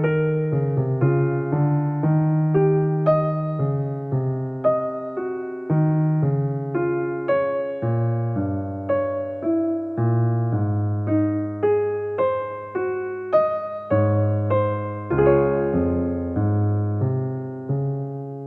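Background music: a gentle solo electric piano playing a melody over held bass notes, each note struck and decaying, with the last chord fading out at the end.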